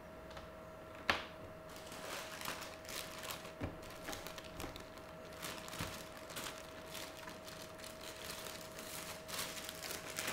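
Faint irregular rustling and clicking, with one sharper click about a second in, over a steady electrical hum.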